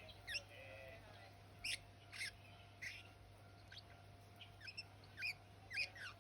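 Budgerigar giving a string of short, sharp chirps, about nine in six seconds, several sweeping down in pitch. Such chattering is what the owner takes as a sign that the budgie is about to start talking.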